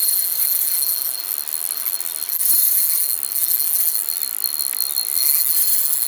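Spinning reel's drag buzzing steadily at a high pitch as a hooked trout pulls line off against it.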